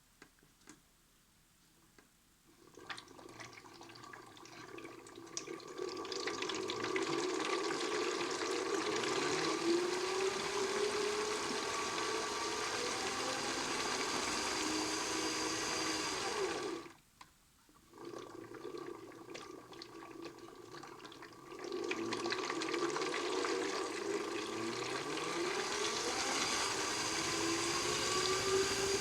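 Modified Miele toy washing machine running: water swishing while its small motor whines, the pitch rising again and again as it speeds up. It stops for about a second around seventeen seconds in, then starts again and builds.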